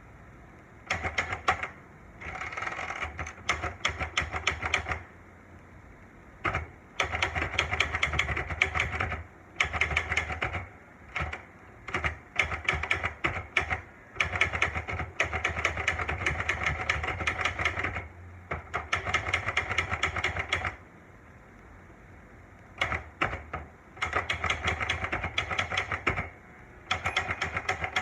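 Olivetti Lettera manual portable typewriter being typed on: quick runs of clacking key strikes, with short pauses between the runs.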